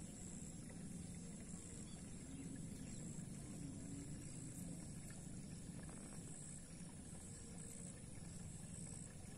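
Faint outdoor ambience: a steady low rumble, with short faint high-pitched chirps coming and going.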